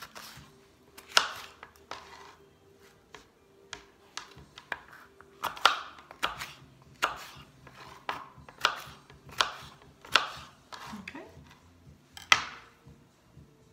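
Kitchen knife dicing red pepper on a plastic chopping board: a series of sharp chops of the blade onto the board, unevenly spaced, roughly one every half second to a second.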